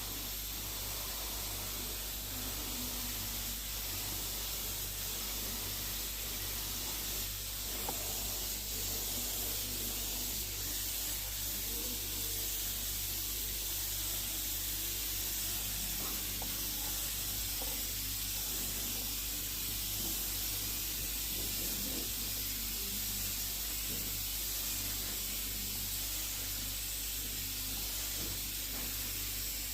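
Steady, continuous hiss of a paint spray gun, unbroken throughout.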